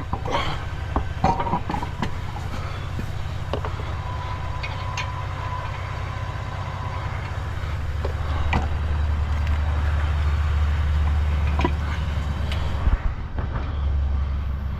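Steady low rumble of passing highway traffic, swelling between about 8 and 13 seconds as heavier vehicles go by, with a few sharp knocks scattered through it.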